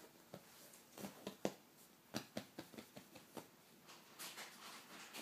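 A string of irregular short, sharp clicks and taps, about a dozen, uneven in spacing and loudness.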